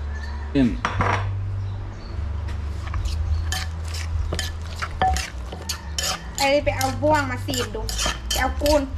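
Wooden pestle pounding chopped herbs in a mortar: irregular knocks, a few at first, then several a second from about three seconds in.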